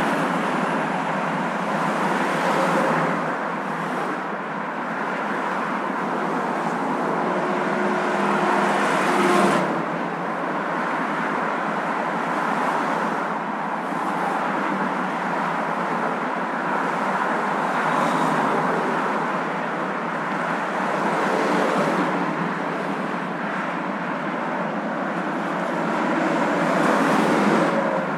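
Steady road and tyre noise of a moving car, a continuous rushing hum that swells briefly a few times.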